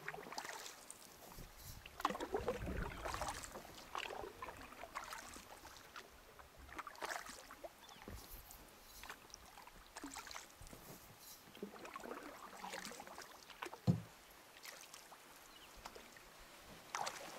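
Canoe paddle strokes in calm water: a short splash and drip every second or two as the canoe is paddled along. One dull knock about fourteen seconds in.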